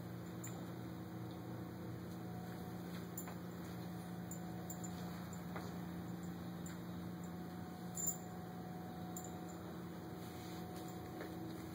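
Steady low hum with faint scattered ticks, and one sharper click about eight seconds in.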